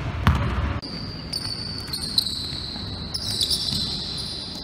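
A basketball bouncing twice on a hardwood gym floor at the start. Then a long, high-pitched squeal of sneakers on the court that wavers about three seconds in, as a player pushes against someone.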